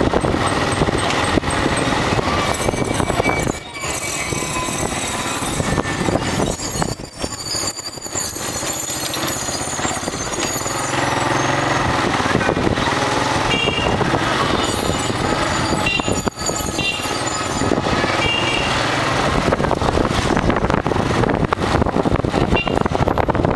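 Motorcycle engine running under way through busy street traffic, loud and rough, with a few brief dips in level.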